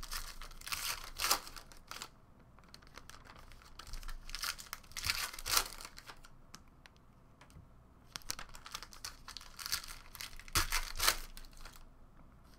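Foil trading-card pack wrappers crinkling and tearing as packs are opened, with cards clicking and sliding as they are sorted and stacked. It comes in three bouts of crackling, with quieter handling between them.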